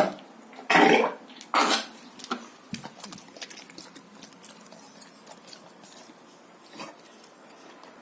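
English cocker spaniel coughing from kennel cough. There are three loud coughs in the first two seconds, a few smaller ones trailing after, and a single weaker cough about seven seconds in.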